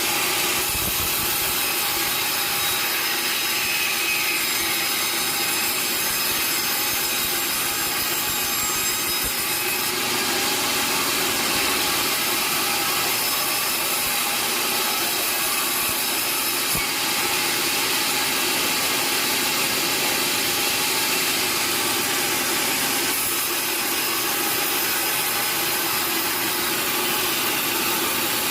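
A sawmill saw running steadily through timber, a continuous sawing noise with a steady machine hum under it.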